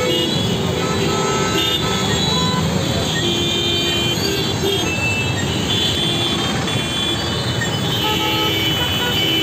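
Gridlocked city traffic: a steady din of engines with many vehicle horns honking over one another at different pitches, in short toots.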